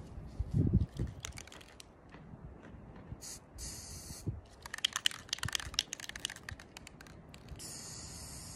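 Aerosol spray-paint can: a short hiss of spray about three seconds in, a run of quick clicks and rattles, then a steady spray hiss that starts near the end. A dull thump comes under a second in.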